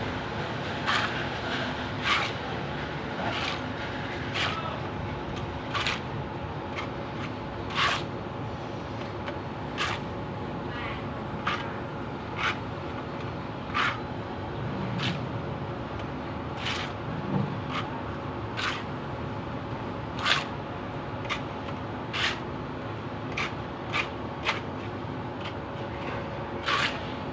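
Hammer blows, most likely on a chisel chipping at concrete: about twenty sharp knocks at an uneven pace of roughly one a second, over a steady background hum.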